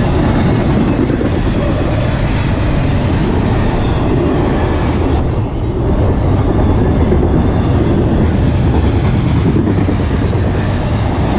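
Intermodal freight cars loaded with double-stacked containers and trailers rolling past close by, a loud steady rumble of steel wheels on the rails with a brief dip in level about halfway through.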